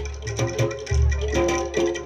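Jaranan dor gamelan music accompanying a kuda lumping horse-trance dance: deep drum beats about every half second under ringing, pitched metal gong-chime notes.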